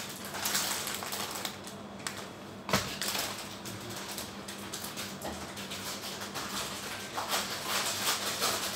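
Light, irregular clicking and rustling from ingredients and packaging being handled at a kitchen counter, with one sharper knock about three seconds in.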